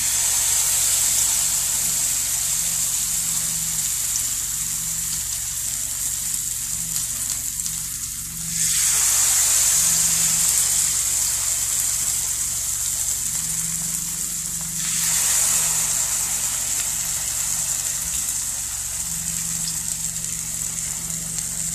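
Nigerian pancake batter frying in shallow oil with a steady sizzle that surges louder twice, about eight and fifteen seconds in.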